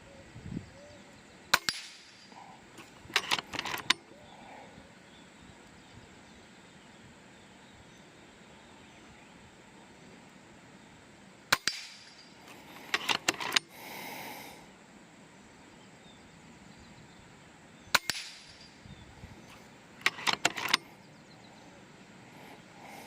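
FX Impact M4 PCP air rifle firing three single shots, each a sharp crack, about seven and six seconds apart. Each shot is followed a couple of seconds later by a quick run of metallic clicks as the side-lever action is cycled to load the next pellet.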